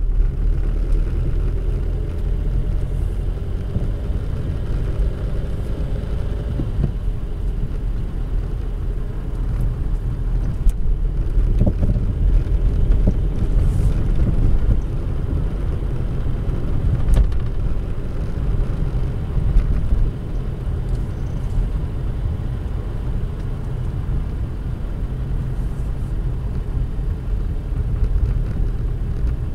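A car being driven, heard from inside the cabin: a steady low rumble of tyres and engine, with a few short knocks from the suspension at scattered moments in the middle of the stretch.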